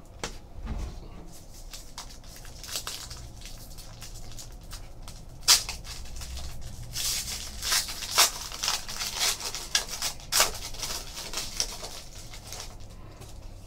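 Foil trading-card pack, a Panini Titanium hockey pack, being handled and torn open: crinkling and crackling of the wrapper, with a sharp crackle about five seconds in and the densest crinkling in the second half.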